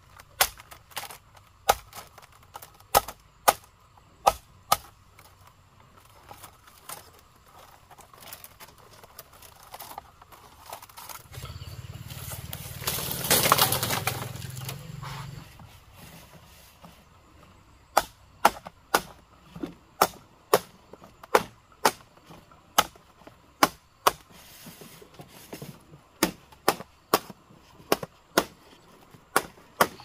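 Machete blade chopping into a green bamboo pole, sharp strikes about two a second, pausing for a while in the middle. Around the middle a louder noise swells and fades over a few seconds.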